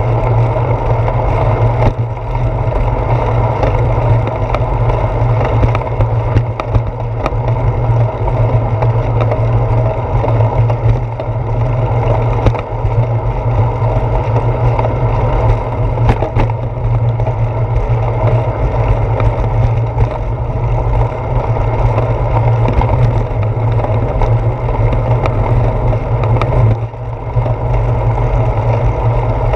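Bicycle rolling fast over a concrete sidewalk, picked up through a handlebar-mounted GoPro: a loud, steady low rumble of road vibration and wind. A few short knocks come as the tyres cross joints in the concrete slabs.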